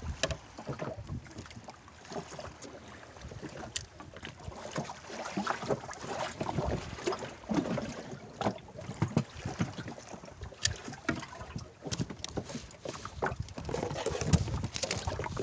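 Wind buffeting the microphone and water lapping against the hull of a small wooden boat, with scattered clicks and knocks throughout.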